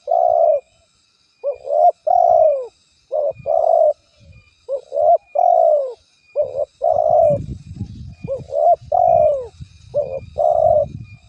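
Spotted dove cooing: a repeated phrase of a short coo followed by a longer, fuller coo, about every one and a half seconds. A low rumble runs under the calls from about halfway through, and faint high chirps sound in the background.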